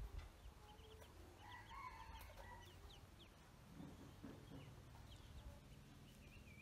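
Faint high peeping of ducklings: a scatter of short, falling chirps, over a low steady hum.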